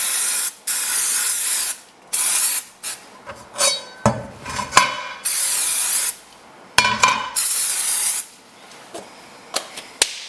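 Aerosol can of engine and parts degreaser spraying in about five short bursts of hiss onto a saw blade's teeth, to loosen resin build-up, with knocks and clinks of handling between the bursts.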